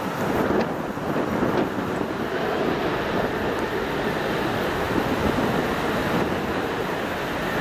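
Jet airliner's engines at takeoff power, a steady rushing noise, mixed with strong gusty wind buffeting the microphone.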